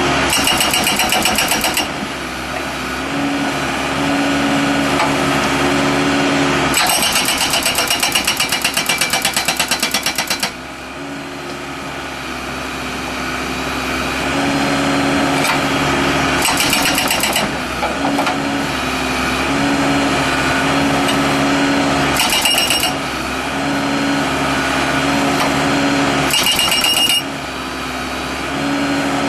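Allied 740 hydraulic hammer on a Case 590 Super L backhoe breaking concrete in five bursts of rapid blows, the longest lasting about four seconds. Between the bursts the backhoe's diesel engine runs steadily.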